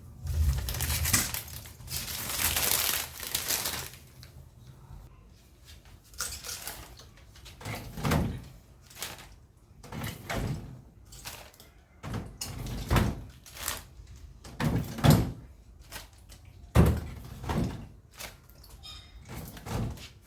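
Kitchen handling sounds: about three seconds of noisy rustling, then a long run of irregular knocks and thuds as items are set down and moved about.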